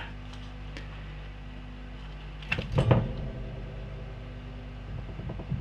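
Small handling sounds of solder wire and speaker leads being worked at a soldering bench: a few faint clicks and a brief louder rustle about two and a half to three seconds in, over a steady low hum.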